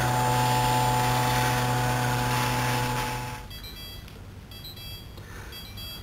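Samsung robot vacuum running: a steady motor and fan hum. It cuts off abruptly about three and a half seconds in, leaving only a faint background.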